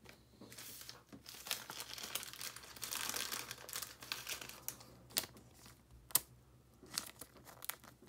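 Thin clear plastic card sleeve crinkling and rustling as it is handled and a trading card is slid into it, loudest in the middle, then a few sharp light ticks and clicks.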